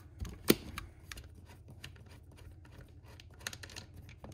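Small clicks and taps of hard plastic chainsaw parts being handled and pulled apart by hand, with one sharper knock about half a second in and a few quick clicks near the end.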